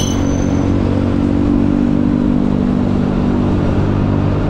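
Yamaha Aerox scooter's single-cylinder engine running at a steady speed while riding, a steady hum under road noise.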